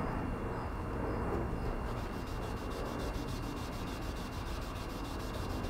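A 1-inch 3M Trizact 3000 abrasive disc on a small hand block is rubbed over fresh clear coat in a steady, soft scratching. It is shaving down raised high spots of touch-up paint to level them with the surrounding finish.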